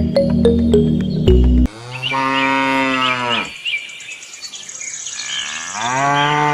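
Background music for the first second and a half, then a cow mooing twice: one long moo that sinks slightly in pitch, and a second rising one near the end.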